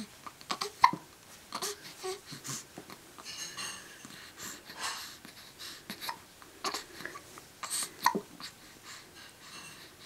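A baby hiccuping over and over: short, sharp hiccups at irregular intervals, the loudest about a second in, with small breathy baby sounds between them.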